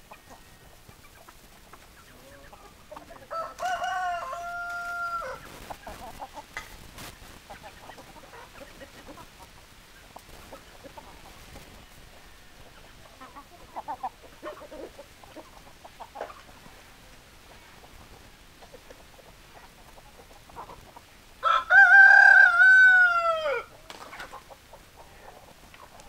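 Roosters crowing twice: a shorter crow about four seconds in and a louder, longer one near the end that falls in pitch as it finishes. Soft clucking from hens in between.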